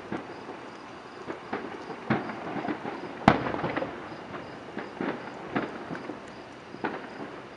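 Fireworks display: aerial shells bursting with irregular bangs and crackles, the loudest about three seconds in.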